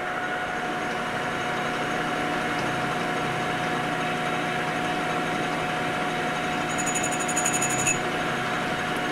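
Emco V13 metal lathe running with the spindle turning, a steady motor-and-gear hum with a constant whine. About seven seconds in comes a brief rapid high ticking.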